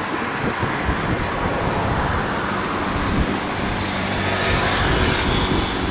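Airbus A330-900neo's Rolls-Royce Trent 7000 jet engines running as the airliner rolls along the ground: a steady jet noise that swells slightly near the end.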